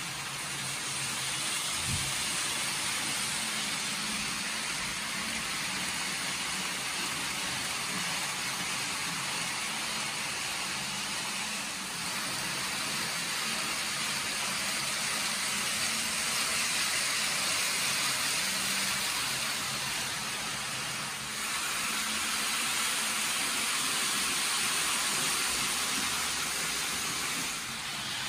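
Kato N gauge Shinkansen model trains running on the layout's track: a steady whirring hiss of small motors and wheels on rail that swells and eases a few times as the trains move about.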